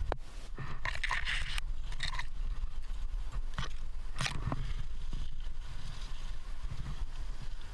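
Scrapes and rustles of a climber pushing past tree branches and brushing against rock. They come as several short separate bursts over a steady low rumble.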